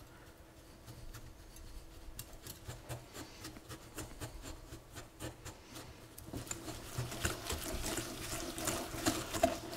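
Wire balloon whisk creaming softened butter into sugar in a glass bowl: quick clicking and scraping of the wires against the glass, getting busier and louder about six seconds in.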